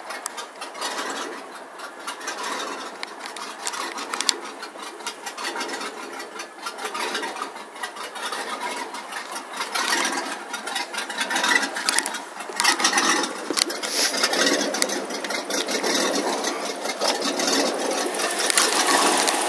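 MerCruiser 350 Mag MPI V8 inboard engine idling steadily in neutral shortly after a cold start. It grows louder in the second half.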